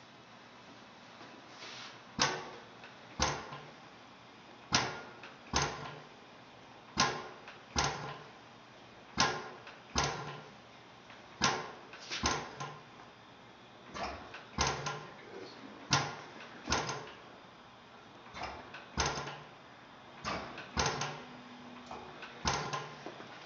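Antique Blaisdell engine-compressor starting up and running slowly: sharp knocks, mostly in pairs, about every two seconds, beginning about two seconds in.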